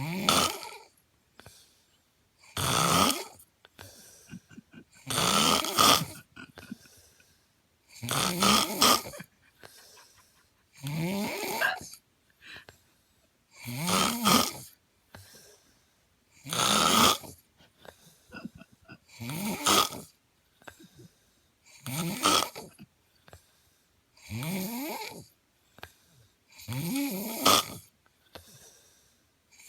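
Loud snoring: a regular run of about eleven rasping snores, one every two and a half to three seconds, each rising in pitch, with quiet between them.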